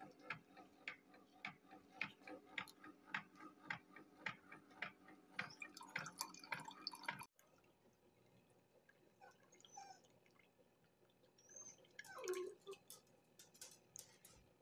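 Keurig 2.0 single-serve coffee maker brewing: faint, regular ticking of about two a second over a steady low hum. After a sudden cut about seven seconds in, it goes quieter, with scattered drips and clicks as the coffee trickles into the mug, and a brief falling sound about twelve seconds in.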